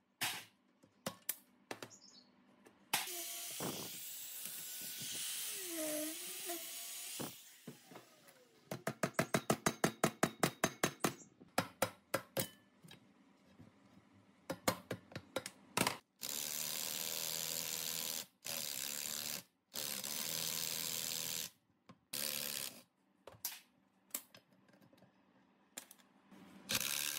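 Workshop tool work on an old diesel engine: scattered metal clicks and knocks, a run of rapid, evenly spaced clicks about nine a second for a couple of seconds, and several bursts of a power tool, each a second or two long, that start and stop abruptly.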